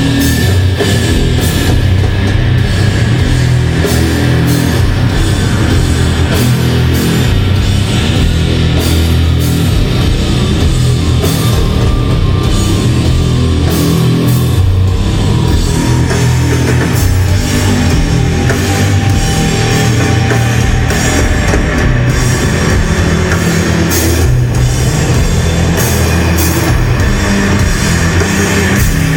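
Loud, steady heavy metal music with drums and guitars, with a long note sliding down in pitch through the middle.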